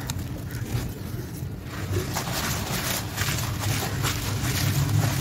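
Hands squelching and swishing through wet sand-cement slurry in a plastic tub, with a string of short wet splashes and scrapes. A steady low rumble runs underneath.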